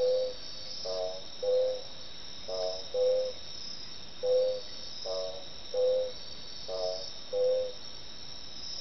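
Odontophrynus carvalhoi digging frog calling: short low notes, a little more than one a second, some with a fuller, buzzier tone and some purer. A steady chorus of crickets runs beneath.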